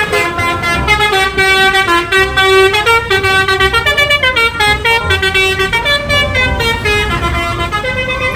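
Basuri 'telolet' musical bus horn playing a fast tune: a run of loud, bright horn notes stepping up and down in pitch, over the low rumble of the vehicle.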